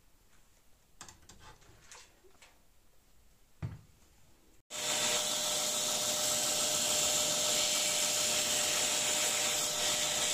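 Belt grinder running with a block of wood pressed against its abrasive belt: a loud, steady hiss with an even whine that starts suddenly about halfway through. Before it, faint handling taps and rubs with a single short thump.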